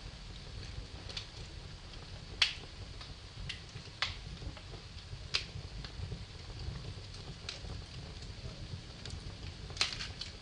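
Wood fire crackling in a fireplace: scattered sharp pops and snaps, the loudest about two and a half seconds in, over a low steady rumble.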